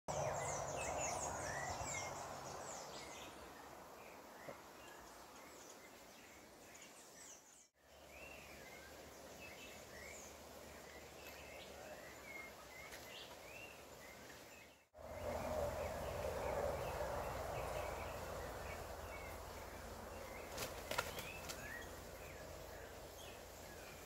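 Outdoor ambience: many short bird chirps and calls over a steady background hiss. The sound drops out briefly twice.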